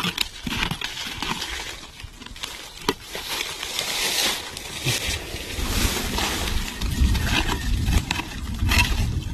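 A small hand hoe chopping and scraping into dry soil, with a few sharp knocks of the blade. Dry leaves and grass rustle and crackle as the litter is pushed aside, and a low rumble runs through the second half.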